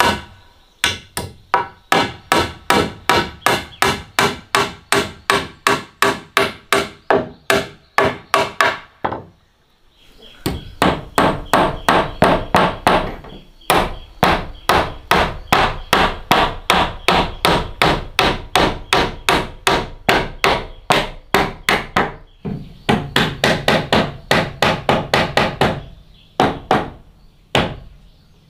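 Claw hammer driving nails into a frame of wooden battens: sharp, regular blows about three a second, each with a brief metallic ring, in several long runs broken by short pauses.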